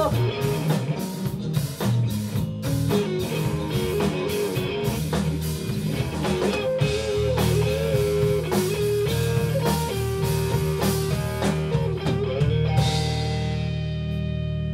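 Live rock band playing electric guitars, bass and drum kit, an instrumental passage with no singing. Near the end the drums stop and a final chord is left ringing.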